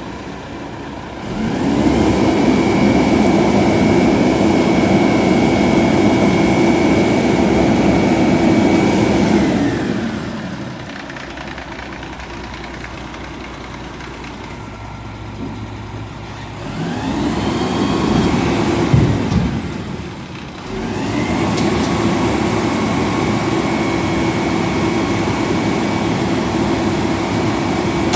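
Front-loading garbage truck's diesel engine revving up and holding a steady high speed, with a thin whine on top, as it drives the hydraulics. It drops back to idle for several seconds in the middle, then revs up again with a rising whine and holds high to the end.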